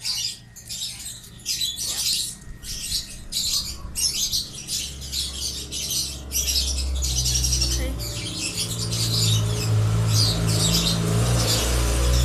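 Slime being squished and worked right against the phone, a quick irregular run of wet crackling squelches. From about halfway a low rumble of handling on the microphone builds up under it.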